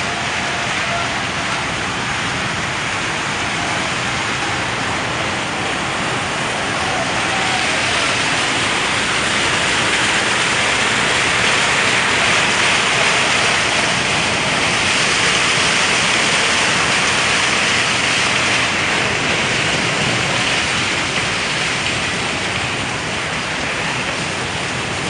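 Steady rushing wind and road noise from travelling along a paved road, growing somewhat louder through the middle.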